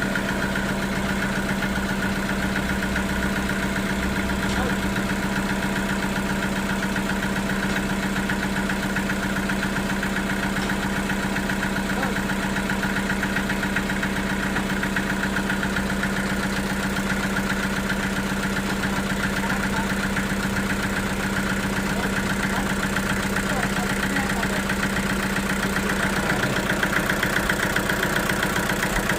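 Sawmill machinery running steadily with a constant hum, growing a little louder near the end.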